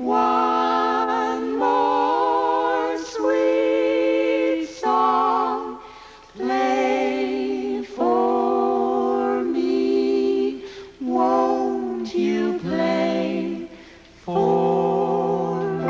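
Voices singing a slow, gentle song without accompaniment: long held notes with vibrato, broken by short pauses between phrases.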